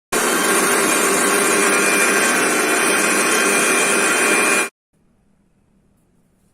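Electric kitchen mixer grinder running at full speed, a loud steady rush with a thin high whine, starting and stopping abruptly after about four and a half seconds.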